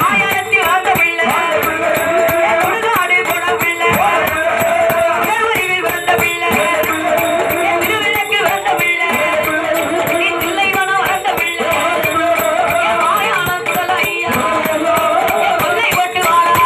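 Villu pattu (bow song) music: a woman sings into a microphone over the steady jingling, rattling beat of the villu, the long musical bow fitted with bells and struck with sticks.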